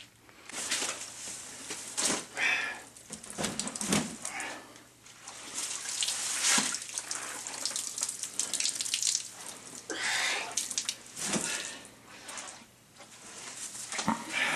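Waterlogged carpet squelching and splashing in irregular wet bursts every second or two.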